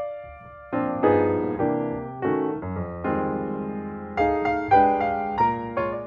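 Background piano music, chords struck one after another and dying away.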